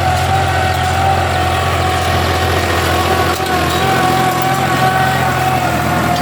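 Tractor engine running steadily under load, a constant low drone with a steady high whine over it.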